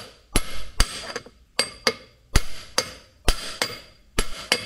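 About ten hammer blows, roughly two a second, on a steel socket used as a driver. They are pressing a cold ball-socket bearing into the heated eye of a cylinder rod resting on an anvil, and each blow rings metallically.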